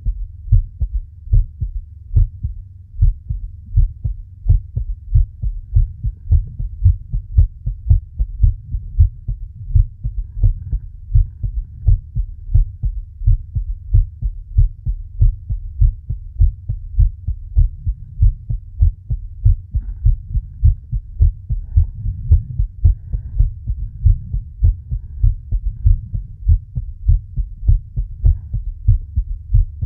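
Human heartbeat recorded close up: a steady, even run of low thumps that goes on without a break.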